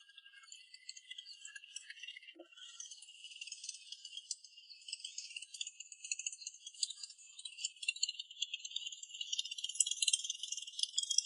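Dense, high-pitched rattling and jingling with no low tones, growing louder in the second half.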